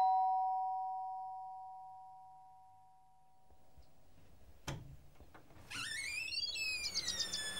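Two-tone doorbell chime, a higher note then a lower one, ringing and slowly fading over about four seconds. A single click comes midway, and birds start chirping near the end.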